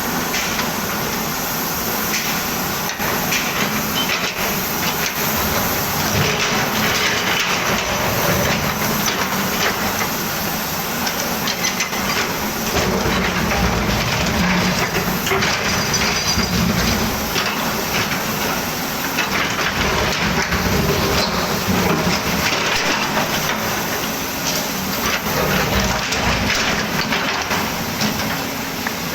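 Volvo excavator at work: its diesel engine running with the load rising and falling, while the bucket scrapes and crunches through soil and stones, with scattered knocks and clanks.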